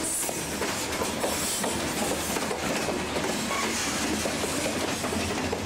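Union Pacific freight train rolling past, a steady even noise with a low hum underneath.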